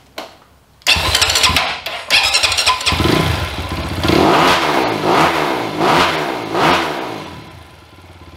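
2020 SSR SR300 dirt bike engine, newly fitted with a Lectron carburetor, starting about a second in, then revved up and down hard about five times before dropping back to a steady idle near the end. Loud, and revving freely and crisply on the new carb.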